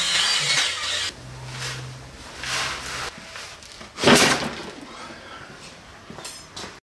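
Cordless drill driving screws into the rim of a plastic barrel's lid, running in short spells through the first three seconds. About four seconds in comes a single loud thud as the plastic barrel is set onto the tumbler's rollers.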